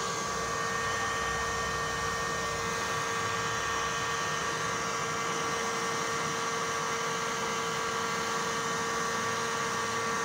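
Nankai 1500-watt heat gun running steadily, blowing hot air onto styrofoam: an even hiss of air with a constant motor whine.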